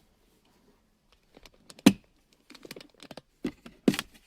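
Plastic centre-console side trim panel of a Lexus IS500 being pulled off by hand, its retaining clips letting go in a series of sharp clicks and snaps, the loudest about two seconds in and two more near the end.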